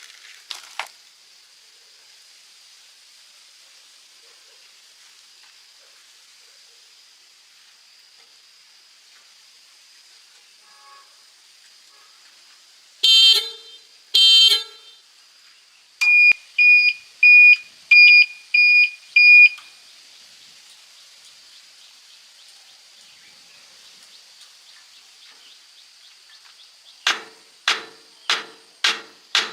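Vehicle horn sounding in short toots: two separate blasts near the middle and a quick run of five near the end. Between them comes a run of six short, high electronic beeps, all over a faint steady high hum.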